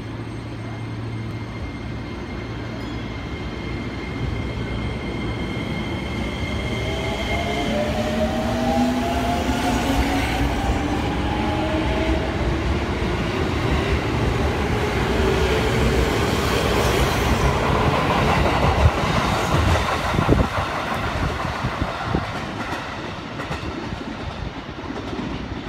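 JR East 205 series 5000 electric train pulling away: its VVVF inverter-driven traction motors whine, rising steadily in pitch as it accelerates. The running noise grows as the cars pass, with a few sharp wheel clacks over rail joints near the end, then eases off as the train leaves. Two steady high tones sound for a few seconds near the start.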